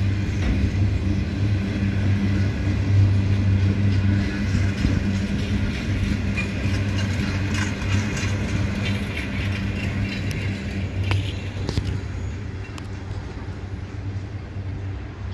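Empty flat wagons of a freight train rolling past: a steady low rumble of steel wheels on rail with a few sharp clanks, easing off slightly near the end.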